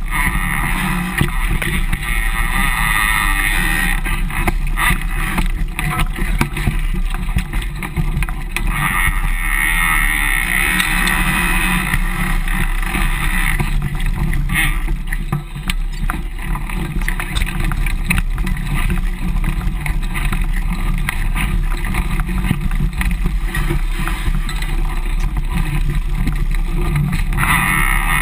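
Mountain bike ridden over a rocky, leaf-covered trail, heard through a GoPro mounted on the frame's bottle holder: steady tyre and trail noise with constant rattling and knocking of the bike and camera mount.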